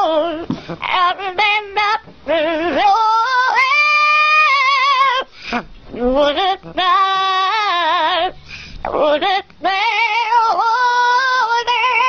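Yellow-naped Amazon parrot singing: phrases of quickly wavering notes alternating with long held notes, broken by a few short pauses.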